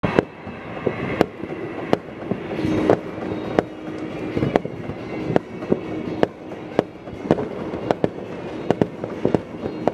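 Fireworks going off around the neighbourhood: a string of sharp bangs at uneven intervals, sometimes several within a second, over a steady background rumble of further explosions.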